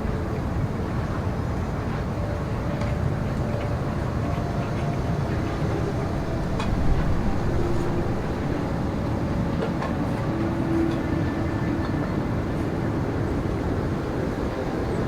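Blizzard wind sound effect: a steady low rush of wind with faint wavering tones coming and going.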